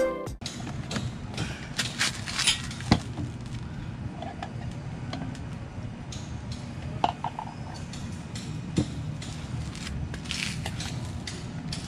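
Scattered small clicks and knocks from hand work with tools and parts at a scooter's engine underside, over a steady low background hum. The sharpest knocks come about two to three seconds in.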